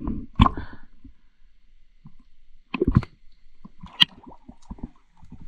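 Scattered muffled knocks and clicks of gear being handled against the camera: one about half a second in, a small cluster near the middle and one sharp click later. A faint low sloshing of water lies underneath.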